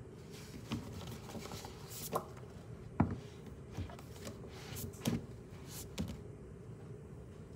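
Pages of a thick workbook being turned by hand on a desk: paper rustling with several sharp taps, the loudest about three seconds in. The rustling stops about six seconds in.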